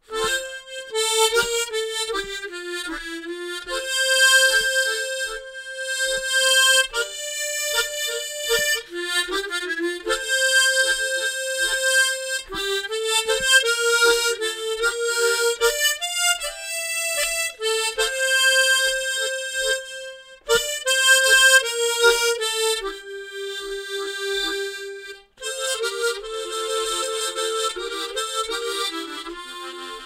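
Harmonica playing a slow melody, with bass notes sounding along with the tune, played slowly for students to follow. It breaks off briefly about three quarters of the way through.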